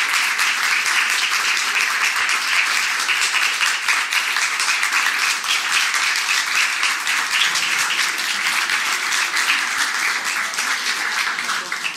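Audience applause: many people clapping together in a dense, steady crackle that carries on throughout and dies away at the very end.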